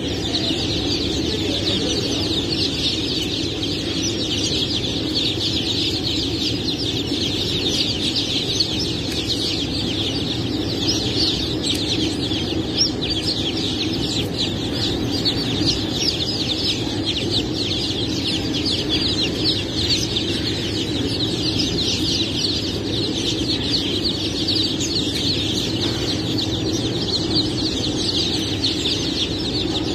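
A large crowd of crossbred chicks peeping continuously, hundreds of short high peeps overlapping into one steady chorus.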